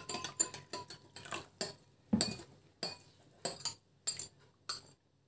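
Metal teaspoon stirring in a small white ceramic bowl, clinking against its sides and bottom about twice a second in an uneven rhythm, dissolving citric acid in water.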